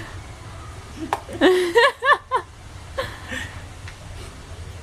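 A person laughing: a short run of rising-and-falling laughs about halfway through, then a softer chuckle.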